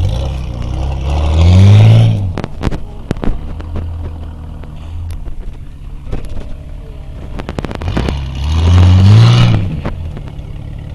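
Nissan Patrol off-road truck's engine revving hard twice, pitch rising then falling each time, as it drives through a deep muddy rut, with lower running between the revs. Scattered knocks and clatter run through it.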